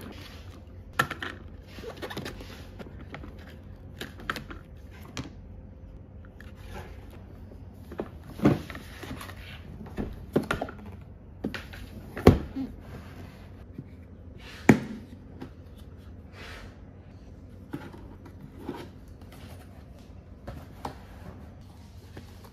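Hard plastic toy case being unpacked by hand: a box-cutter blade slicing cardboard at first, then scattered clacks and knocks of plastic being opened and handled, the three loudest about 8, 12 and 15 seconds in. Paper and plastic bags rustle near the end.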